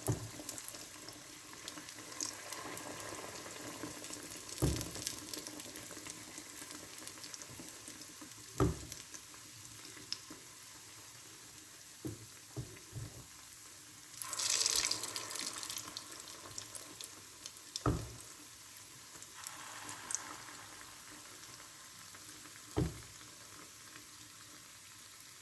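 Akara bean cakes frying in hot oil with a steady sizzle. The sizzle surges louder for a couple of seconds a little past halfway, and there are a few short knocks.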